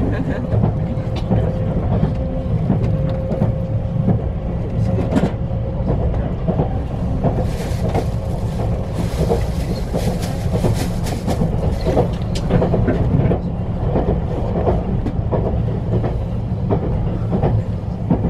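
Train running, heard from inside a passenger car: a steady low rumble with wheels clicking over rail joints, and a few seconds of louder hiss and clatter midway.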